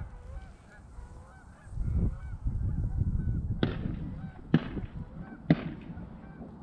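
A flock of Canada geese honking, many overlapping calls at a distance, over a low rumble of wind on the microphone. Three sharp sudden knocks about a second apart in the second half stand out as the loudest sounds.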